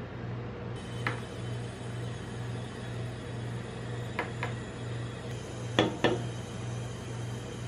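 Steady low hum of a rolled-ice-cream cold plate's refrigeration unit, with a few light clicks and knocks from handling on the steel plate: one about a second in, a pair around four seconds, and two louder ones around six seconds as a soda can is picked up.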